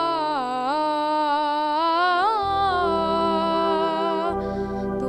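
A boy singing one long wordless phrase into a microphone, his voice sliding and bending in pitch, over a steady held instrumental chord. A low bass note comes in about halfway through; near the end he pauses for breath and starts the next phrase.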